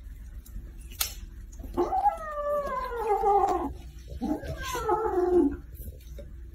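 An animal giving two long, drawn-out calls, each falling in pitch, with a sharp click about a second in.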